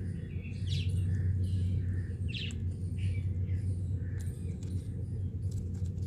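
A few short, high bird chirps, the clearest two about one and two and a half seconds in, with softer ones after, over a steady low hum.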